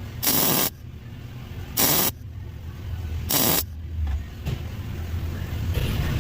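Welder firing in four short bursts of about half a second each, welding a nut onto a broken exhaust manifold bolt stub so it can be backed out. A low steady hum comes up in the second half.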